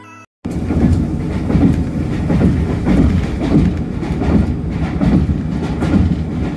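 Passenger train running on the rails, heard from inside the carriage: a loud, steady rumble that starts about half a second in, just as a short tune cuts off.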